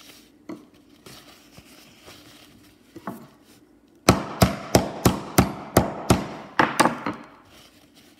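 Paper towel rustling as it is folded around a lump of sulfur, then a steel-headed hammer striking the wrapped lump about ten times in quick succession, roughly three blows a second. The blows crush the brittle sulfur to powder.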